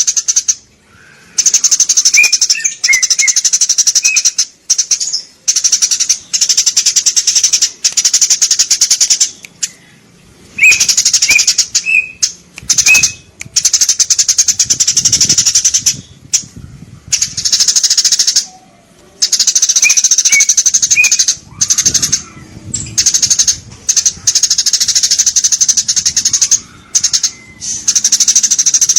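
Eurasian tree sparrows chirping in rapid, dense bouts a few seconds long, broken by short pauses, with a few clearer, lower notes mixed into some bouts.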